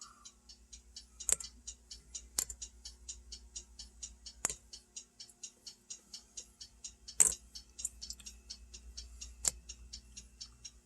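Fast, even ticking, about five ticks a second, with a handful of louder sharp clicks at uneven intervals, over a faint steady hum.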